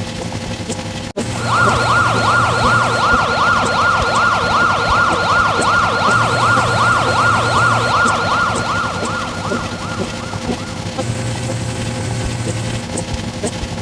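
Siren sounding a fast up-and-down warble, about three sweeps a second. It starts about a second and a half in and fades out near ten seconds, over a steady background drone.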